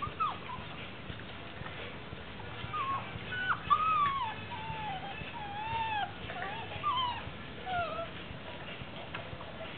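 Six-week-old Presa Canario puppies whining as they play-fight: a run of short, high cries that bend up and down in pitch, most of them between about three and eight seconds in.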